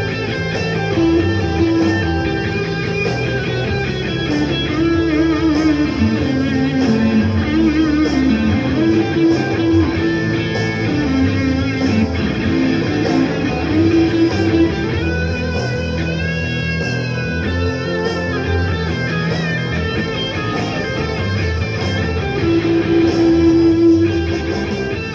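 Blues guitar playing: held single notes and chords at a steady level, with a high note bent upward about sixteen seconds in.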